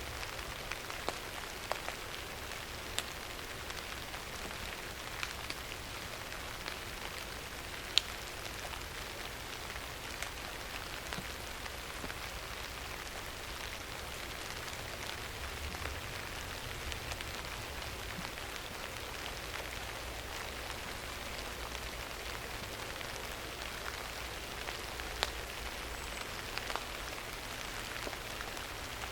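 Steady rain hissing, with scattered sharper drop hits and one louder hit about eight seconds in.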